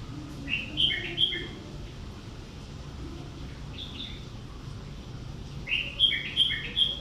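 A small bird chirping in quick runs of short high notes: four or five about half a second in, a couple near four seconds, and about six near the end, over a steady low hum.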